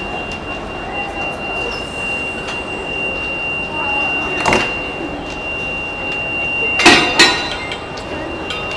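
Railway coach coupling gear being handled between two passenger carriages: sharp metal clanks about four and a half seconds in and twice in quick succession near seven seconds, over a steady background noise with a thin high whine.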